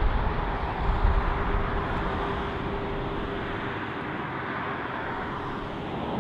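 Diesel locomotives of a Canadian Pacific freight train heard from a distance, a steady engine drone with a constant hum running through it. Low buffeting of wind on the microphone swells in the first second and a half.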